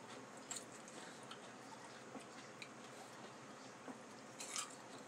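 Faint close-miked chewing, with scattered soft mouth clicks and wet smacks and one short louder smack near the end.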